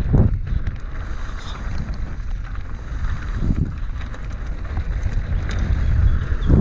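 Wind buffeting a GoPro Hero 5 Black's microphone as a mountain bike rolls down a dirt trail, a steady low rumble of wind and tyres on dirt. A few dull thumps and faint rattling clicks come through along the way.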